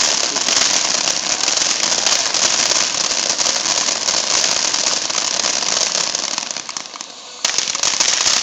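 Fireworks crackling in a dense, continuous stream of rapid small pops. The crackle dies down about seven seconds in and starts again abruptly half a second later.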